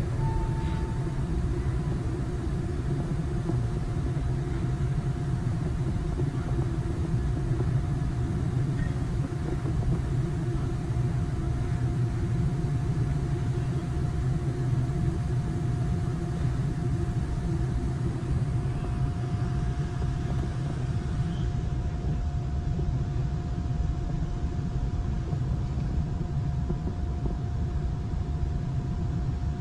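Steady low drone of a large ferry's engines and hull vibration heard aboard, with a constant hum and a faint steady whine above it.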